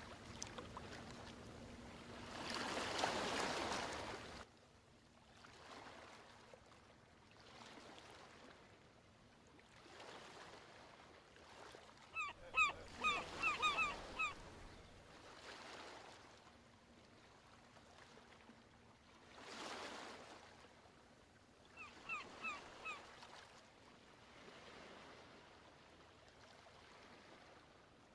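Gentle ocean waves washing ashore in slow surges, the biggest one a few seconds in. A bird calls in quick runs of short, clipped notes about halfway through and again near the end.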